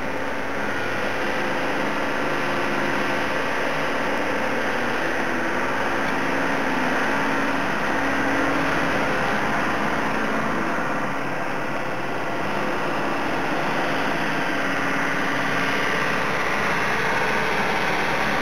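Diesel engine of heavy demolition machinery running steadily, with its pitch wavering slightly and no crashes of debris.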